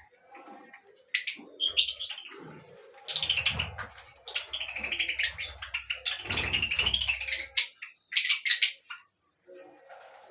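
Birds chirping and calling in a string of quick, high bursts, the sharpest calls coming near the end, over a low rumble.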